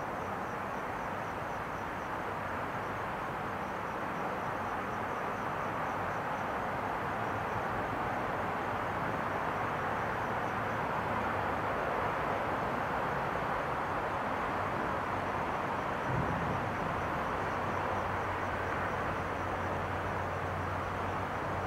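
Outdoor night ambience: a steady rushing noise, like distant traffic, that slowly swells, with a low hum growing stronger near the end. Insects chirp in an even, rapid pulse throughout.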